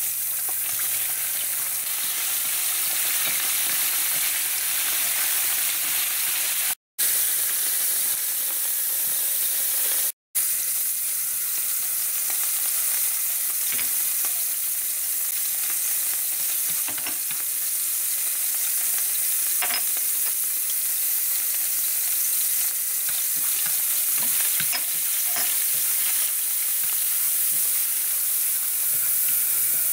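Hot oil sizzling steadily in a nonstick frying pan as squid pieces, then minced garlic, chili and scallion fry, stirred with chopsticks with a few light clicks. The sound cuts out twice, very briefly.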